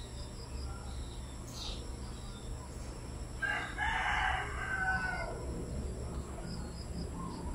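A rooster crows once, a single call of nearly two seconds that falls in pitch at its end, about halfway through. A steady low hum runs underneath.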